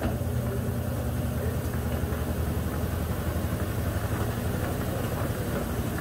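Consul Facilite 10 kg top-loading washing machine spinning its basket in the spin cycle, the motor and drum giving a steady low hum. The machine is running on test after a mechanical overhaul.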